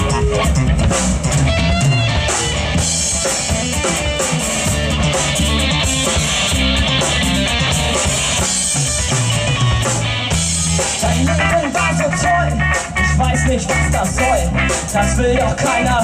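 Live rock band playing loud, amplified: a drum kit with kick drum and cymbals keeping a steady beat under an electric bass guitar.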